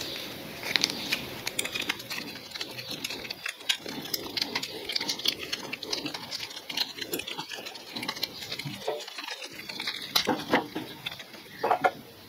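PTFE thread-seal tape being pulled off its roll and wound around the threads of a brass air-coupler fitting by hand: an irregular run of small crackles and ticks.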